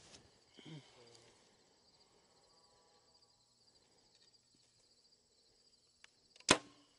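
A compound bow is shot once about six and a half seconds in, giving a single sharp crack as the string is released. Under it, crickets and other insects chirr steadily.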